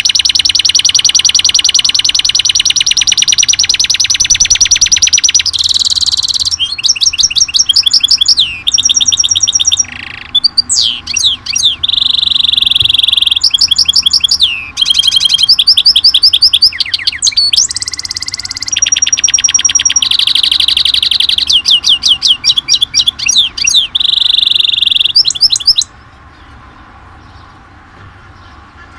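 A songbird singing a long, loud, high-pitched song made of fast trills and sustained rolls that switch to a new pattern every second or two. The song stops abruptly about 26 seconds in.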